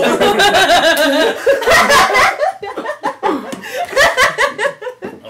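Several people, men and a woman, laughing loudly together.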